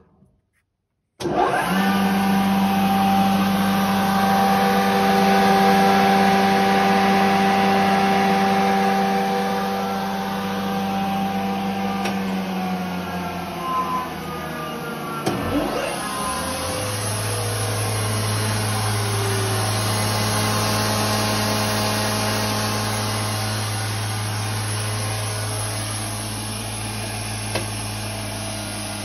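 Electric spindle motors of a Weinig PKA 14 N moulder, starting abruptly about a second in and then running with a steady pitched hum. About halfway through, one motor's tone falls away as it spins down, a few clicks sound, and a deeper-humming motor comes up to speed as motors are switched on and off at the push-button panel.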